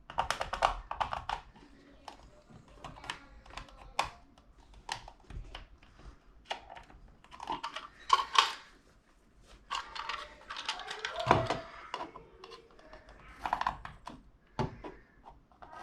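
Pencil scratching on drywall in short, irregular strokes and clicks, tracing the outline of an electrical box held against the wall.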